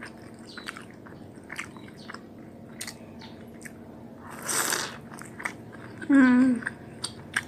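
Close mouth sounds of eating fried pempek pangsit (fish-cake wonton) dipped in cuko sauce: small wet chewing clicks, and one loud bite lasting about half a second a little past halfway. Near the end comes a short hummed 'hmm' that falls in pitch.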